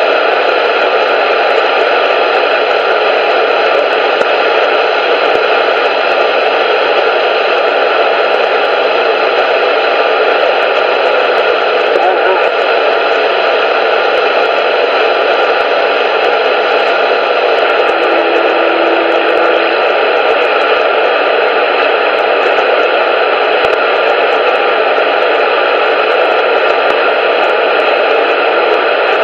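Loud, steady static hiss, like an untuned radio, with a brief low hum tone about two-thirds of the way through.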